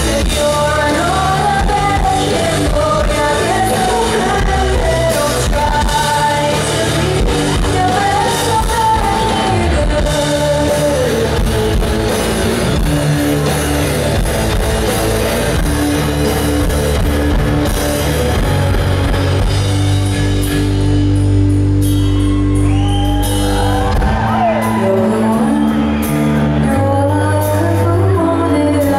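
Live rock band: a woman singing lead over electric guitars and drums. About two-thirds of the way in, the singing stops for a few seconds while the band plays on, then comes back.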